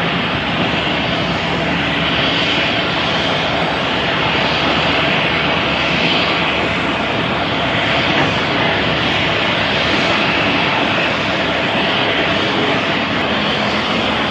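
Jet airliner engines running, a loud, steady rushing noise with a faint hum underneath that holds level without rising or falling.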